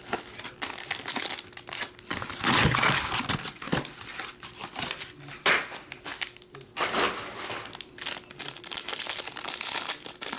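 Plastic wrapping on a trading-card box crinkling and tearing as it is opened by hand, in irregular bursts with louder rustles a few seconds apart.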